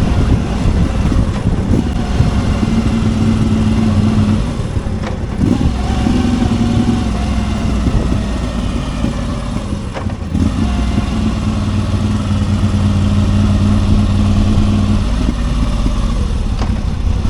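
Moto Guzzi V85 TT's air-cooled V-twin running through a Mistral conical aftermarket exhaust silencer, with the exhaust note as the main sound. It holds steady revs for stretches, with brief dips in level about five and ten seconds in.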